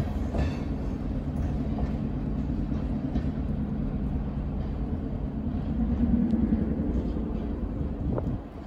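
Freight train's covered hopper cars rolling away on the track, a steady low rumble of steel wheels on rail with a few faint clicks, dropping off sharply near the end.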